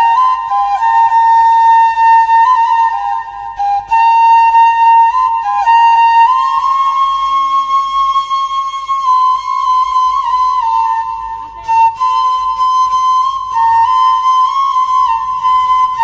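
Background music: a solo flute playing a slow melody of long held notes with small ornaments between them.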